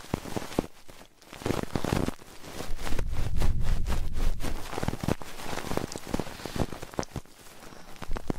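Close-miked ASMR trigger sounds: irregular crackling clicks and scratching over a low rubbing rumble that swells and fades, typical of something being worked against the microphone.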